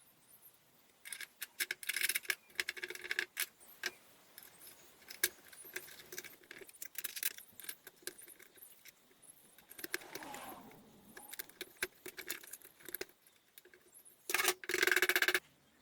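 Small metal parts of an old padlock clinking and rattling as they are handled, with scattered sharp clicks and a louder scrape of about a second near the end.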